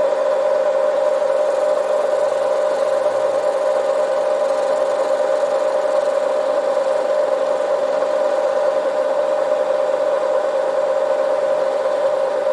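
Metal lathe running with a steady, unchanging whine.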